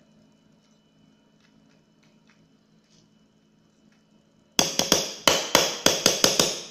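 Near silence, then about four and a half seconds in a quick run of about ten sharp knocks, about five a second, as a spoon taps against the cake pan, each knock with a short ring.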